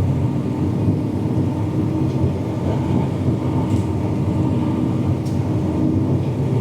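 Combine harvester running steadily while cutting wheat, a constant low machine hum with a faint steady whine, heard from inside the cab.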